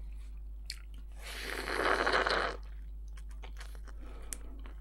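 Close-up eating sounds from a person biting and chewing a grilled shawarma wrap in lavash: small mouth clicks and crunches, with one louder, longer rustling crunch of about a second and a half near the middle.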